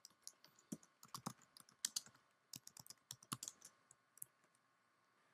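Faint typing on a computer keyboard: irregular keystrokes that stop about four seconds in.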